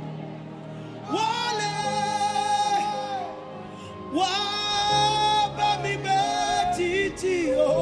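Worship singing: a woman's voice holding long sung notes over a soft, steady keyboard accompaniment, with two rising phrases starting about a second in and about four seconds in.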